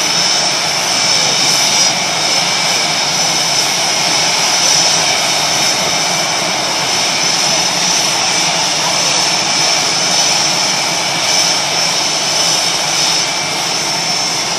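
Several F/A-18 Hornet jets idling on the ramp. Their turbofan engines make a loud, steady whine with high-pitched tones over a constant rush, and the pitch does not change.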